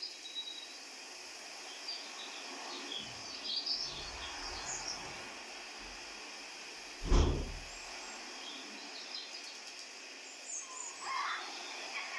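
Birds chirping in short, scattered calls over a steady background hiss, with a low rumble in the middle and a single loud thump about seven seconds in.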